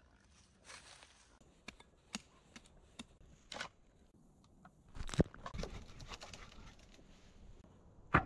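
Scattered scrapes, rustles and crunches of digging work in soil and dry leaf litter, with a loud thump a little past halfway and a sharp knock near the end.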